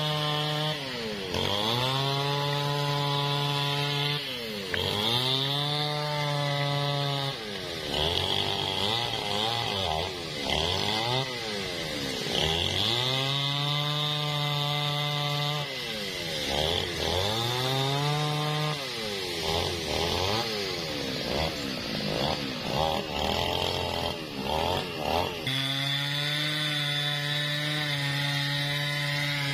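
New West 628 two-stroke chainsaw cutting through a felled angsana trunk. Its engine note keeps sagging under load and climbing back to full revs every two to three seconds, with quicker throttle blips in places.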